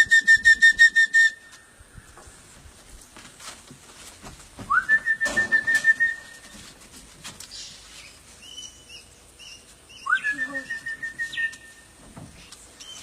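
A person whistling a trilled call to summon parrots, three times: each call slides quickly up, then holds one warbling pitch for about a second and a half.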